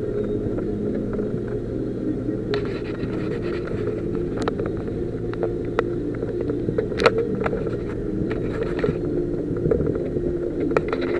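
4x4's engine running steadily as the vehicle drives along a rough, muddy green lane, heard from inside the cab. From about two and a half seconds in, scattered sharp clicks and knocks come over the engine.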